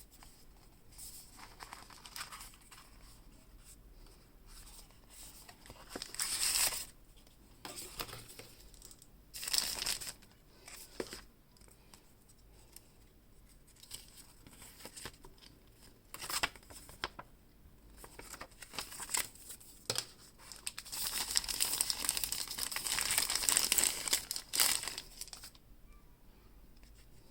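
Plastic packaging crinkling and tearing in short, separate bursts as a boxed phone is unwrapped, with a longer spell of steady crinkling near the end.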